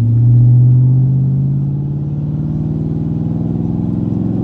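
Loud in-cabin exhaust note of a straight-piped 5.7 L Hemi V8, with gutted catalytic converters and no resonators or mufflers, accelerating from a stop. The engine pulls in one gear, its pitch climbing slowly.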